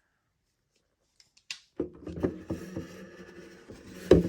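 Nearly two seconds of silence, then handling of a plastic popcorn container: rubbing and light clicks over a low steady hum, with one sharp knock near the end.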